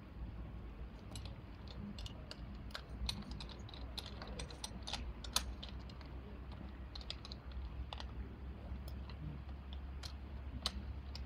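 Irregular sharp clicks and clinks of rescue gear being handled at a well-rescue tripod, over a low steady hum.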